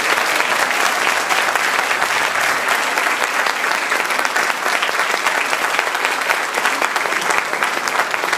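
Audience applauding, a dense steady clatter of many hands clapping that eases slightly near the end.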